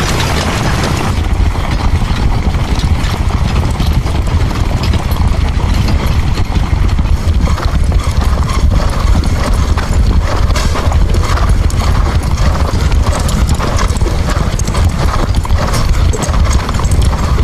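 Andalusian horse's hooves galloping: many quick hoofbeats over a steady low rumble.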